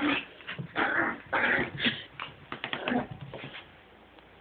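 Excited puppy giving a series of short yips and whimpers, going quiet near the end.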